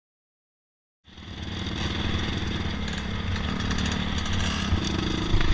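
Dirt bike engine running steadily while riding, heard from a camera mounted on the bike, with wind noise on the microphone. It cuts in suddenly about a second in, after silence.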